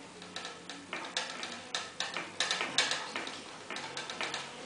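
Fingertips pressing and spreading sushi rice over a nori sheet on a plastic-wrapped bamboo rolling mat, giving irregular light clicks and ticks, about two or three a second.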